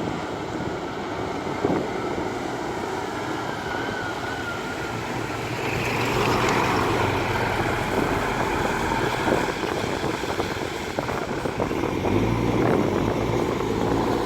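Diesel engines of heavy earthmoving machinery running under load, a steady engine noise that grows louder about six seconds in, with a deeper engine note coming in near the end.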